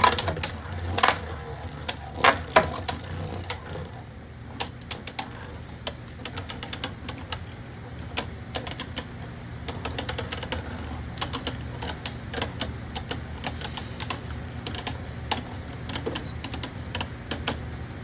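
Two Beyblade Burst spinning tops battling in a plastic stadium, clicking rapidly and irregularly as they knock together. There are a few louder hits in the first three seconds.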